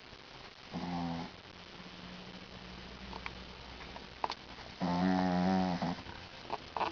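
Small dog snoring in its sleep: a short snore about a second in, a fainter drawn-out breath after it, then a longer, louder snore about five seconds in, with a few short clicks between.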